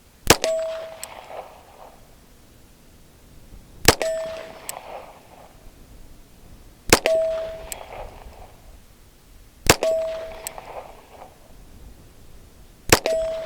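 Five shots from a Ruger Mark IV Target .22 pistol firing standard-velocity .22 LR rounds, about three seconds apart. Each shot is followed by a brief metallic ring.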